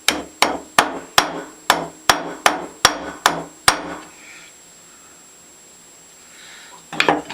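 Hammer tapping an oiled pin into the body of a Stanley No. 113 circular plane: about ten quick, sharp strikes over the first four seconds, then a pause and a few more strikes near the end.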